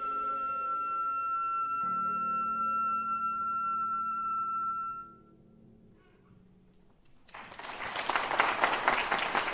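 A flute holds the long final high note of a piece over a lower accompanying note, and both die away about five seconds in. After about two seconds of near quiet, an audience starts applauding, the clapping quickly growing loud.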